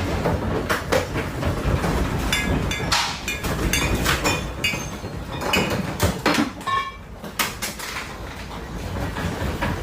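Household objects rattling and clattering in earthquake shaking: a dense run of knocks and clanks, some with short metallic or glassy rings, over a low rumble.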